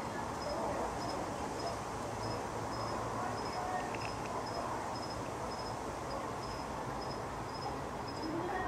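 A cricket chirping steadily, about two short high chirps a second, over a constant background hiss and low hum.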